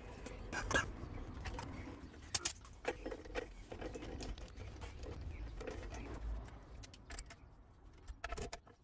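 Socket wrench with an extension tightening the spare wheel's nuts onto the wheel carrier: scattered metallic clicks and clinks of the socket and ratchet on the wheel studs.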